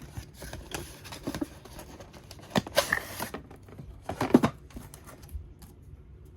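Hands opening a toy's cardboard box and handling its packaging: scattered taps and clicks, a short rustle of paper or plastic about three seconds in, and a louder cluster of knocks a little past four seconds.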